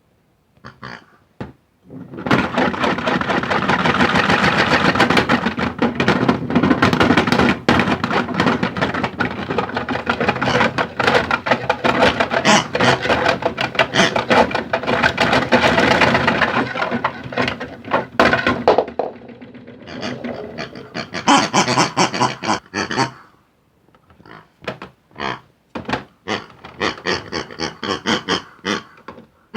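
Modified Hotpoint toy washing machine running with balls tumbling and knocking in its drum: a loud, continuous clatter that stops about two-thirds of the way in, leaving scattered single knocks.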